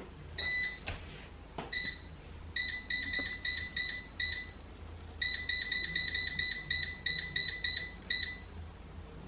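Electronic beeps from a kitchen appliance's control panel, all at one high pitch and unevenly spaced: a few single beeps, then a quick run of about seven and a longer run of about a dozen, as when buttons are pressed to set it.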